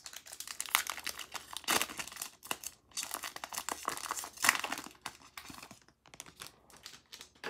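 Foil wrapper of a Pokémon trading card booster pack crinkling and tearing as it is opened by hand, in irregular crackly bursts.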